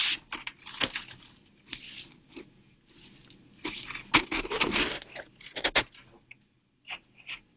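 Irregular handling noises: a run of short rustles and knocks, busiest in the middle, thinning out to a few faint clicks near the end.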